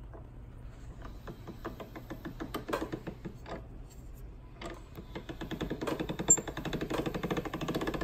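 Hand-cranked Marcato Atlas 150 pasta machine rolling a sheet of dough: a few scattered clicks, then from about five seconds in a fast, even clatter of the rollers and gears as the crank is turned.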